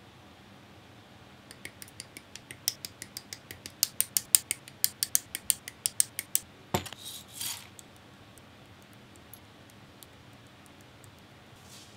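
Hard plastic model-kit parts being snipped and handled: a fast run of sharp clicks, about four a second and getting louder. Then comes a single louder knock and a short rustle.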